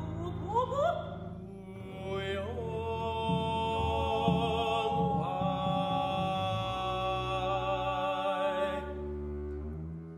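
A high voice singing long notes with wide vibrato and upward glides, over a low bowed double bass. The voice stops about nine seconds in, leaving the bass sounding alone.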